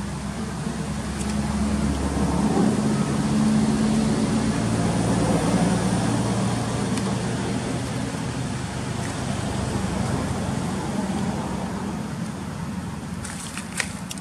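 A motor vehicle engine running with a steady low hum, growing louder over the first few seconds and then slowly fading. A few sharp clicks come near the end.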